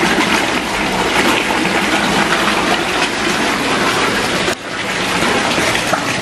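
Water gushing and splashing steadily into a koi pond, with a brief drop in level about four and a half seconds in.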